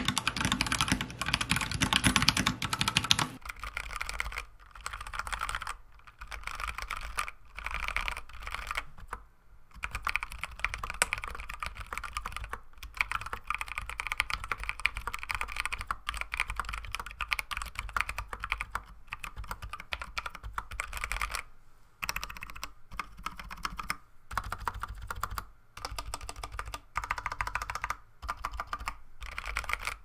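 Typing on a Royal Kludge RK100 mechanical keyboard with brown tactile switches and PBT keycaps: a fast, continuous clatter of keystrokes with short pauses between bursts. About three seconds in the sound suddenly becomes quieter and thinner, losing its low end.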